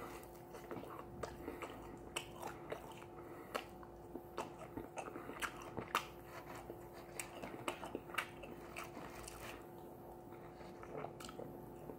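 A person biting and chewing fried chicken wings: quiet, irregular wet mouth clicks and small crunches, thinning out near the end.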